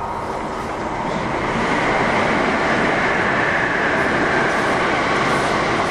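Train noise heard from aboard a Kintetsu 1000 series commuter train standing at a station: a steady rumbling noise that swells about a second and a half in and then holds.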